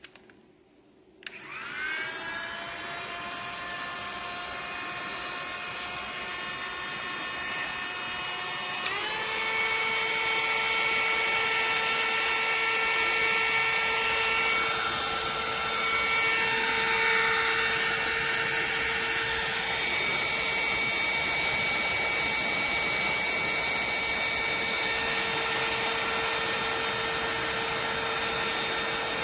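SEEKONE 600 W mini heat gun switched on with a click about a second in: its fan motor spins up with a rising whine and runs steadily. About nine seconds in it jumps to a higher, louder whine, the step from the first to the second setting, and keeps running.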